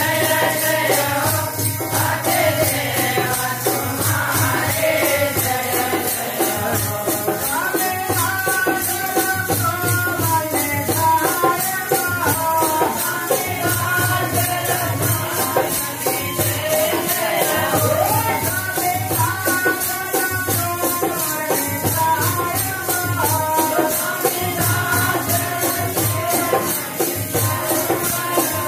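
Group of men singing a Hindi devotional bhajan, backed by a fast, steady jingling of hand cymbals and a low pulsing beat.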